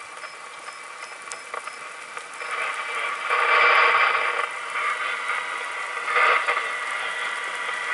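Radio scanner hiss and static, swelling louder for about a second roughly three seconds in and again briefly near the end.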